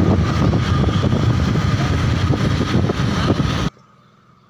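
Loud road noise, a rough rumbling rush of vehicle sound with wind on the microphone. It cuts off suddenly about three and a half seconds in, leaving a much quieter background with a faint steady tone.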